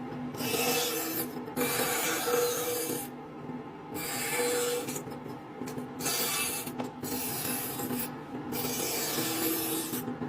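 Woodworking band saw cutting wood: a rasping hiss from the blade in the cut that comes and goes in several passes of one to two seconds, with short breaks between them, over the steady low hum of the saw.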